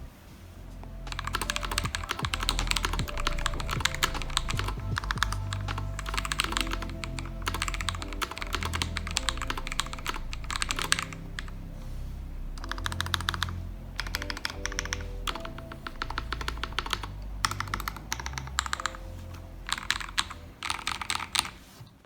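Typing on a KBD67 Lite R4 custom mechanical keyboard with Akko Radiant Red linear switches on a polycarbonate plate, in fast runs of keystrokes with short pauses between them. Background music plays underneath.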